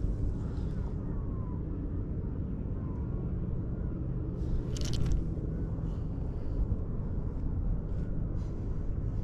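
Steady low rumble, with one brief sharp swish about five seconds in.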